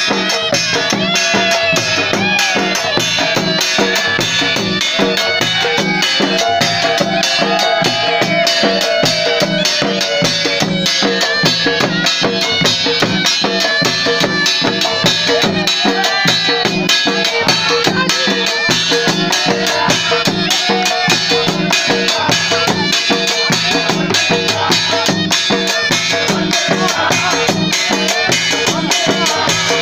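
Balochi lewa dance music: several hand-beaten barrel drums (dhol) play a fast, steady rhythm with a wavering melody line above them.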